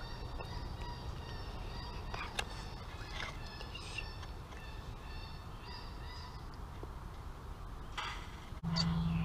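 Repeated bird-like calls, a run of short high notes, over a steady low rumble. A steady low hum starts near the end.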